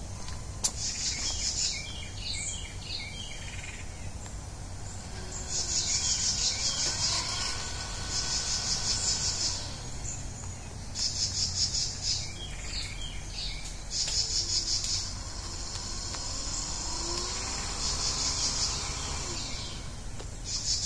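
Crickets trilling in repeated pulsing bursts. Under them, a faint whine from a small electric trolling motor run by a PWM speed controller rises and falls in pitch twice, once as the lever goes forward to full and back to stop, then again in reverse.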